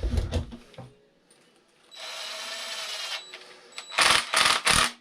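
A small power tool whirs steadily for about a second, set between a few light knocks of parts being handled and a run of loud sharp clatters near the end.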